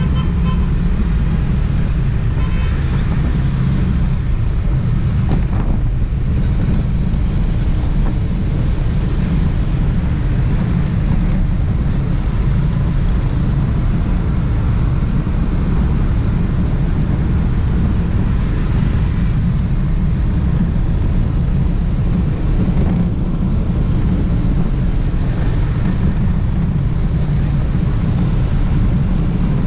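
Steady, loud wind rumble on the microphone of an action camera mounted on a moving motorbike, mixed with the running of surrounding motorbike and truck traffic.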